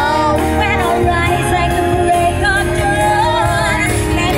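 A pop song with a woman singing, playing on a car stereo, with young girls singing along.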